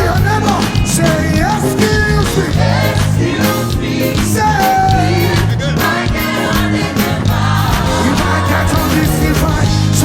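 Live gospel praise music: a full band with drums and a strong bass line, with a lead voice singing melodic lines over it.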